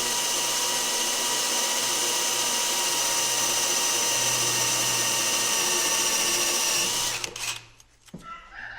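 Power drill boring a hole through whisky-barrel wood, its motor running steadily at constant speed, then stopping about seven seconds in.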